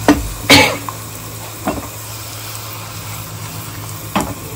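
Garlic and cashews frying in hot oil in a small saucepan, a steady low sizzle. A few sharp knocks of a utensil on the pan cut through it, the loudest about half a second in, and a faint steady hum runs underneath.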